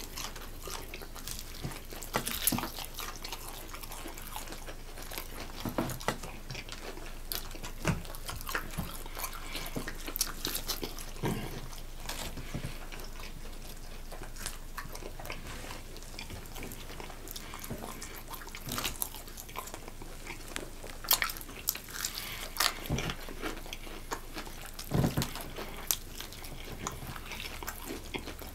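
Eating sounds of two people biting and chewing fried chicken legs: irregular wet mouth clicks and smacks as meat is pulled off the bones.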